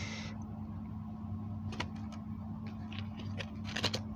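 A steady low electrical-sounding hum, with a few faint clicks and light knocks over it.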